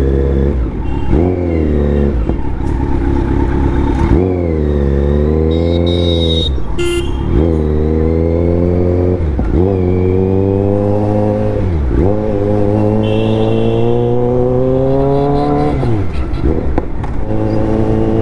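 Kawasaki Z900 inline-four engine pulling up through the revs and dropping back sharply on throttle-off or gear changes, about six times, with one long climb in the second half.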